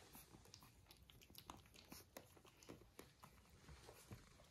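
Faint, scattered scratchy clicks of a puppy gnawing at the edge of its wooden crate bed.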